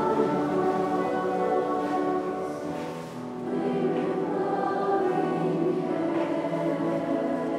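Mixed choir singing sustained chords in many parts. The voices ease off briefly about three seconds in, then come back in.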